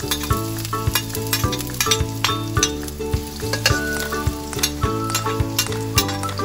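Chopped onion sizzling and crackling in hot cooking oil in a wok while a metal spatula stirs it, over background music.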